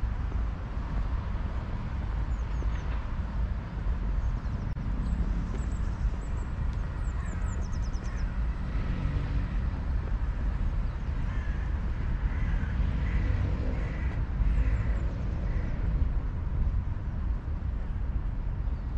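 Outdoor city-park ambience: a steady low rumble with faint, high, short bird chirps now and then.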